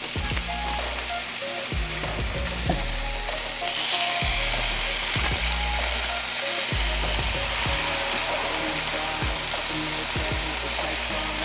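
Thin-sliced ribeye steak sizzling on a hot oiled flat-top griddle as slices are laid down one after another. The sizzle grows louder about four seconds in, with a few light taps scattered through.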